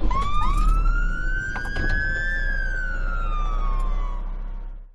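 A siren wailing, two overlapping tones rising together for about two seconds and then falling slowly, over a low rumble. It fades out near the end.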